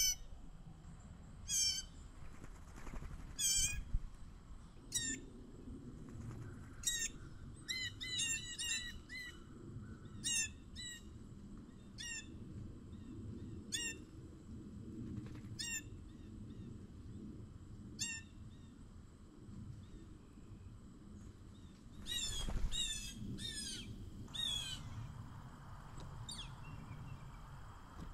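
Songbirds calling: many short, sharp, dropping call notes, thickest about eight to ten seconds in and again around twenty-two to twenty-five seconds, over a faint low rumble.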